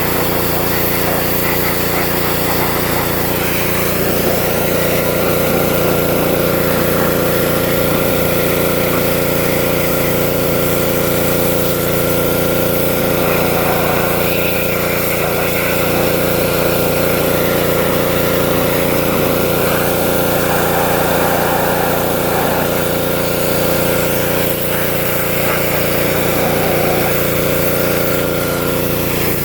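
Pressure washer running steadily on a small engine, with the constant hiss of the high-pressure spray.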